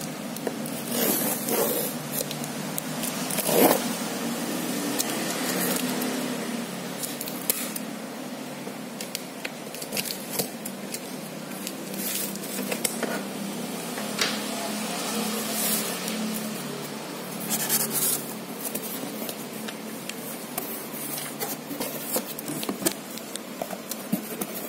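Cardboard carton being opened by hand: irregular scraping, tearing and rustling of cardboard and plastic wrapping, over a steady low hum.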